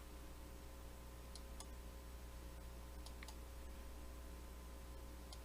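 Faint clicks from taps on a smartphone's touchscreen keyboard, coming in pairs three times, over a steady low electrical hum.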